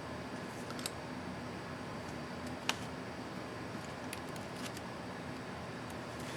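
A few faint, sharp plastic clicks as a laptop keycap and its retainer clips are handled, the clearest about a third of the way in, over a steady hiss and low hum.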